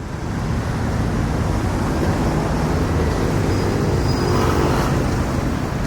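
Steady city street traffic: a continuous rumble of cars and buses, with one vehicle's engine hum standing out for a couple of seconds around the middle.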